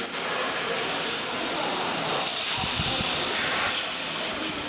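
Metal laser cutting machine cutting sheet metal: a steady hiss from the cutting head as it throws sparks, with a brief low rumble a little past halfway.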